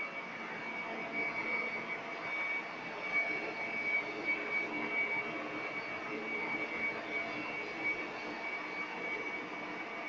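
Powered backpack fogging sprayer running steadily, hissing out a fine mist of disinfectant through a hose nozzle, with a constant high whine over the hiss.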